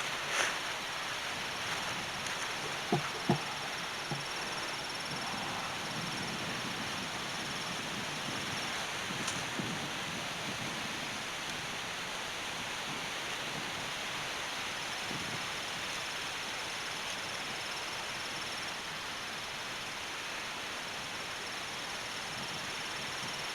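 Steady hiss of wind outdoors, with a couple of light knocks about three seconds in.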